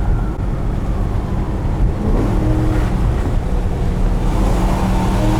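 BMW E92 M3's V8 engine running as the car drives, with road noise underneath; its pitch climbs briefly about two seconds in, then holds steady.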